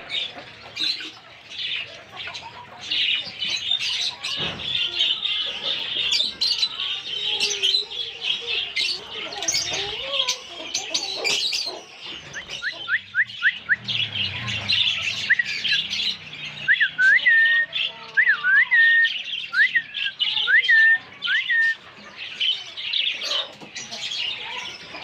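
Parrots squawking and chattering throughout, with a run of short, rising whistled notes about halfway through.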